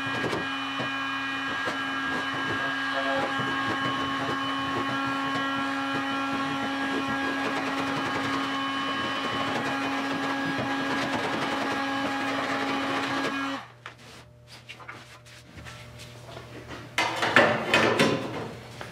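Electric heat gun running with a steady hum while a chisel scrapes softened body filler off the car's steel deck, making light scraping clicks; the heat gun cuts off about two-thirds of the way through. Near the end, loud metal scraping and clattering as a sheet-metal piece is laid against the deck.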